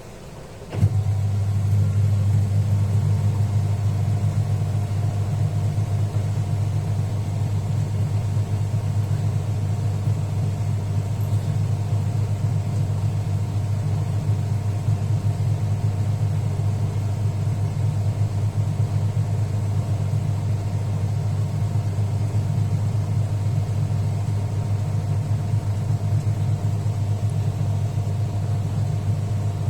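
Sanyo top-loading pulsator washing machine in its spin-dry cycle: a click about a second in, then the motor and drum run with a steady low hum.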